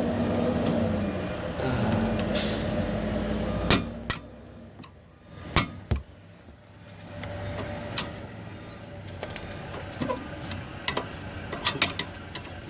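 Scattered metallic clicks and knocks as an old rear brake pad on a 2014 Honda Civic is worked and pried out of the caliper bracket. A steady hum runs under the first four seconds and then stops.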